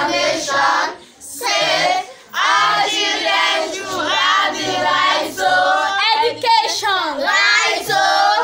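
A group of children singing together in phrases, with two short breaks about one and two seconds in.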